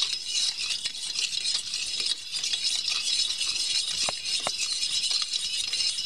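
A utensil stirring liquid briskly in a stainless steel bowl: a fast, continuous rattling scrape against the metal, with two short ringing clinks about four seconds in. This is the wet part of a bread dough (sugar, warm water, egg and salt) being mixed together.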